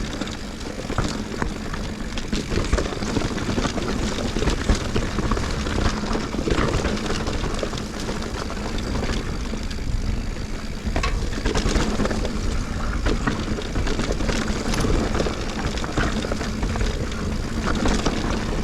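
Sonder Evol GX mountain bike riding down a dirt trail: a steady rush of wind and tyres over the ground, with the bike rattling in frequent small knocks and clicks.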